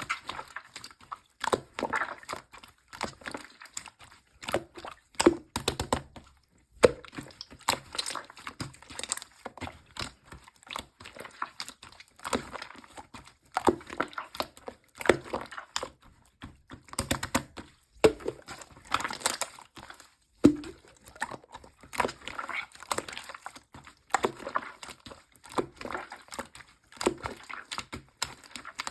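Pearl slime being squished and pressed by hand: an irregular run of sticky clicks and small squelching pops, several a second, with a few brief pauses.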